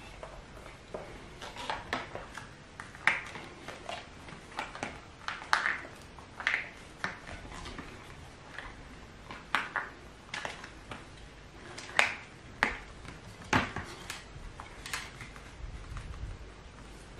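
Wooden slats of a strapped slatted mat being handled on stone paving: irregular sharp clicks and knocks, about fifteen of them, some with a short ring.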